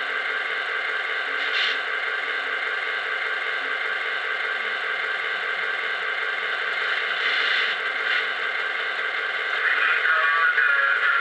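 A model diesel locomotive's onboard electronic engine sound plays a steady idle through its small built-in speaker. The sound is an even, unchanging hum with no deep bass. Near the end a louder wavering sound joins in.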